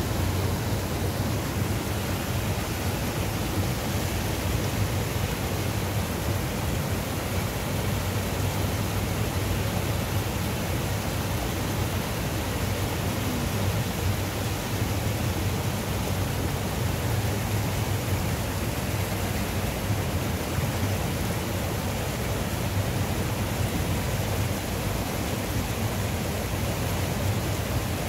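Steady rushing of a small Himalayan river's flowing water.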